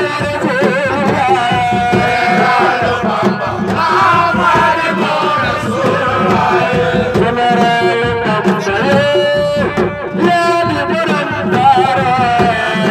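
Music: a singer holding a wavering, heavily ornamented melody over a steady hand-drum rhythm.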